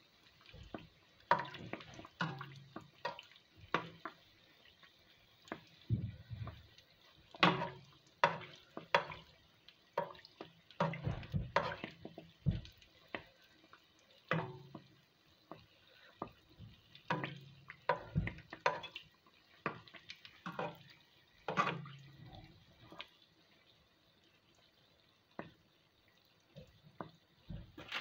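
Float bake frying in hot oil in a pan, with a faint steady sizzle. Irregular splashes and clicks come from a slotted spatula and then a fork working the dough and oil, and grow sparse in the last few seconds.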